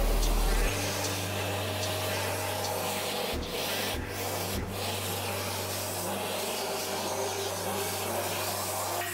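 Spindle of a homemade CNC router milling a relief into a wooden board, the bit cutting through the wood over a steady motor hum.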